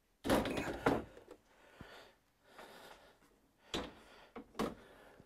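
A heavy breath of effort right after lifting the Q'Nique 16x Elite longarm quilting machine, then two sharp knocks later on as the machine is set and settled on its carriage.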